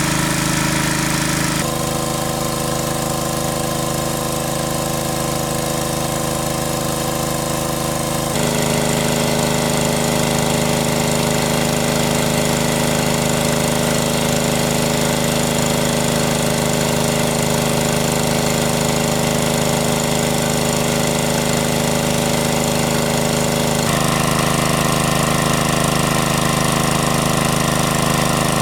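Engine of a large water pump running steadily, sucking water; its pitch shifts abruptly about two seconds in, again about eight seconds in, and near the end.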